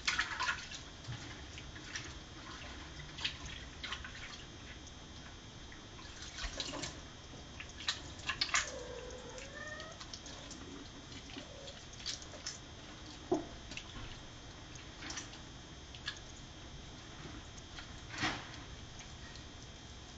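Water dripping and splashing in a stainless steel sink while a wet kitten is bathed and handled, with scattered sharp splashes. One short kitten meow comes about halfway through.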